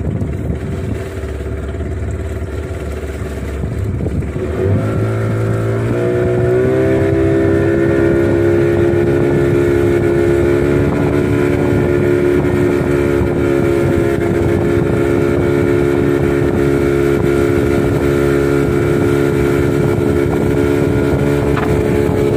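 Outboard motors on a small fishing boat, running low for the first few seconds, then throttled up about five seconds in, the pitch climbing over a couple of seconds before they settle into a steady run at speed.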